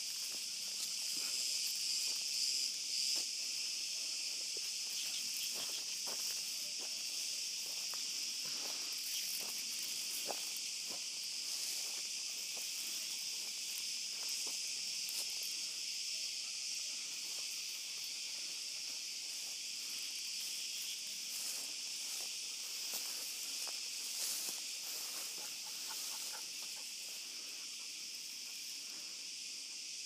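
Cicadas singing in a steady, high-pitched chorus, with scattered footsteps and rustles through dry vegetation.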